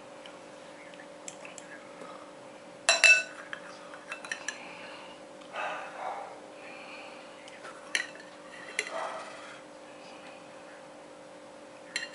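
A metal fork and spoon clinking and scraping against a ceramic plate and glass serving bowls as rice and chicken korma are scooped and mixed. The taps are sharp and separate, with the loudest about three seconds in and softer scraping and scooping between them, over a steady faint hum.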